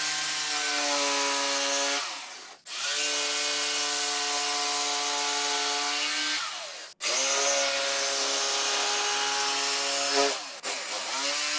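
Corded Ryobi jigsaw cutting through a white tabletop along a taped line. Its motor runs with a steady whine, stopping briefly and starting again about two, seven and ten seconds in.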